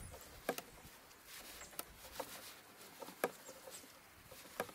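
Dry twigs and brush crackling and snapping as cut branches are handled, with about five sharp snaps over faint rustling.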